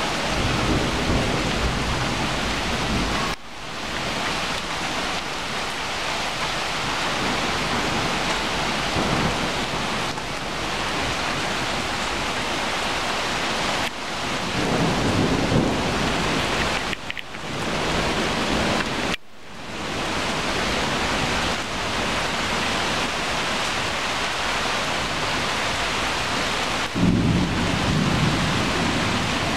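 Heavy autumn rain falling steadily on wet pavement and tree leaves: a dense, steady hiss that drops out briefly a few times. Low rumbles come in about midway and again near the end.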